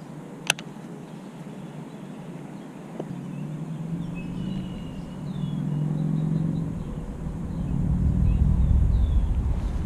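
Low wind rumble on the microphone, building from about four seconds in and growing louder, over faint chirping birds. A sharp click comes about half a second in.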